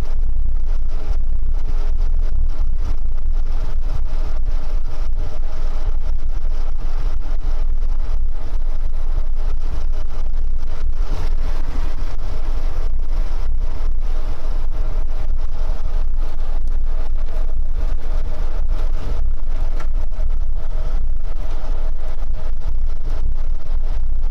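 Steady engine drone and road noise heard inside the cab of a heavy vehicle cruising on a highway, deep and constant without gear changes or breaks.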